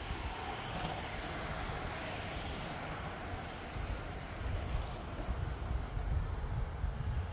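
Wind buffeting the microphone as an uneven low rumble, growing gustier about halfway through, over a steady outdoor hiss that fades about five seconds in.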